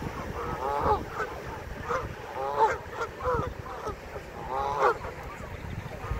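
Canada geese honking: a string of short honks from several birds, one every second or so, with the loudest calls near the middle and toward the end.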